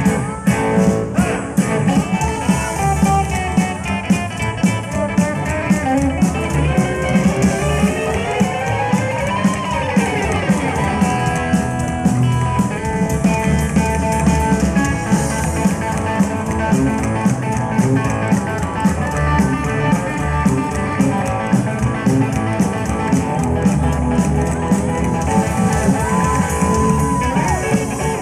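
Live rockabilly band in an instrumental break: a hollowbody electric guitar solo over bass and drums. The guitar slides a note up and back down about ten seconds in, and holds a long bent high note near the end.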